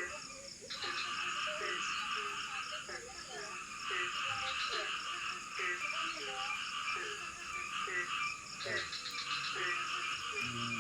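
Frogs calling in a forest at night-chorus density, many short croaks overlapping several times a second, over a dense steady high-pitched buzzing chorus.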